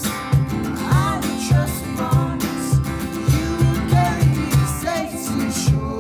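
Music: a song with acoustic guitar over a steady beat.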